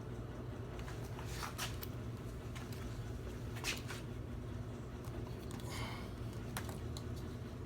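A few short, soft rustles and scrapes of a plastic door-handle cover being handled and pressed into place on a car door, over a steady low background hum.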